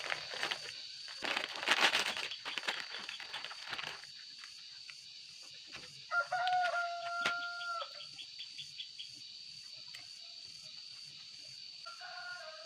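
A rooster crowing: one long held call about six seconds in, dropping at its end, and a second starting near the end. A burst of rustling and clattering comes in the first few seconds, over a steady high-pitched tone.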